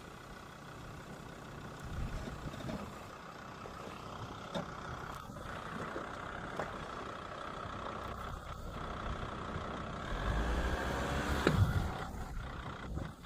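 Jeep Grand Cherokee WJ's 2.7 CRD five-cylinder diesel engine running as the vehicle drives, with a few short knocks. The engine gets louder near the end, and the sharpest knock comes about eleven and a half seconds in.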